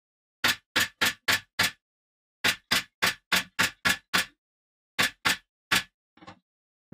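Sharp knocks in three quick runs of five, seven and three, about three a second, then one fainter, softer knock near the end.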